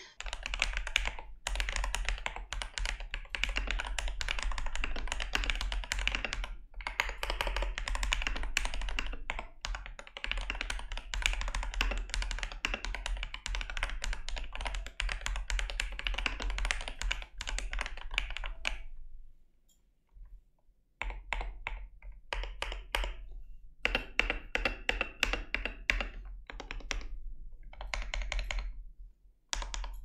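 Typing on a DrunkDeer A75, a plastic-cased 75% keyboard with magnetic Hall-effect linear switches and its stock keycaps: a fast, continuous run of keystroke clacks. About two-thirds of the way in the typing stops for a couple of seconds, then resumes.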